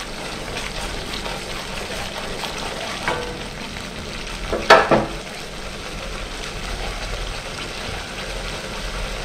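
Thick gravy sizzling and bubbling in an iron kadai, stirred at first with a wooden spatula scraping the pan. A single louder knock about halfway through.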